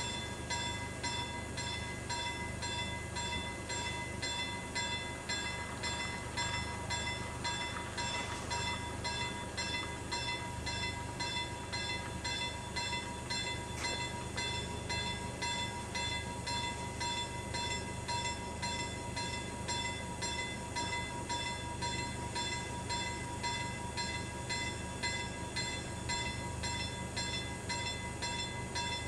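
Level crossing warning bell ringing continuously in quick, even strokes, over a low steady rumble.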